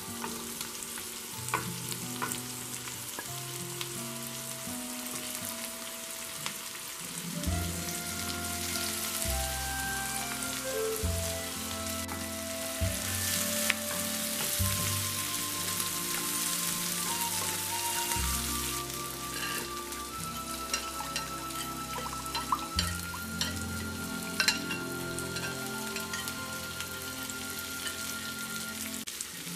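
Chicken pieces and vegetables sizzling in a frying pan while a wooden spoon stirs them, with small clicks and scrapes against the pan. Background music plays underneath, its bass line coming in about seven seconds in.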